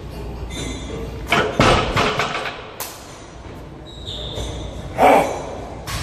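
Loaded deadlift barbell of about 535 lb dropped back to the floor as the lifter's grip gives out: a heavy thump about a second and a half in, followed by a few clattering knocks of the plates. Another loud thump near the end.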